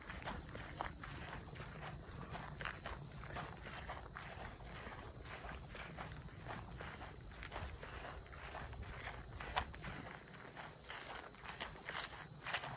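Crunching footsteps at a steady walking pace, over a constant high-pitched chorus of crickets.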